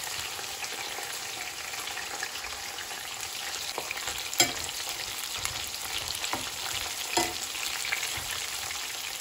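Cornflake-coated chicken breast strips deep-frying in hot oil in a stainless steel pot: a steady sizzle. A slotted metal spoon stirs and turns them, with a few sharp clicks, the loudest about halfway through.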